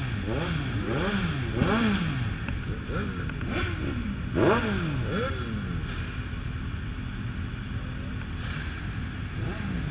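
A group of motorcycle engines idling together, with repeated throttle blips rising and falling in pitch one after another through the first half, the loudest about four and a half seconds in. After that the engines settle to a steady idle.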